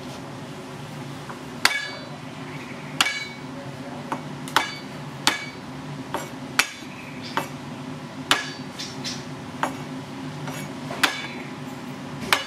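A steel cleaver striking garlic cloves on a plastic cutting board, crushing and chopping them: about a dozen sharp knocks, roughly one a second and irregular, some with a brief metallic ring from the blade.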